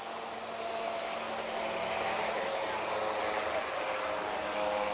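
AutoGyro MTO Sport autogyro flying past, its Rotax flat-four engine and pusher propeller making a steady drone that grows louder over the first second or so as it comes closer, then holds.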